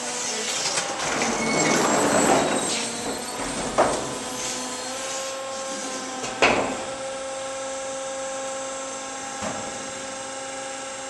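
Warehouse loading noise: a wooden pallet scraping and knocking on a concrete floor, with two sharp knocks about four and six and a half seconds in. From about five seconds on, the steady whine of a Clark electric forklift's motor.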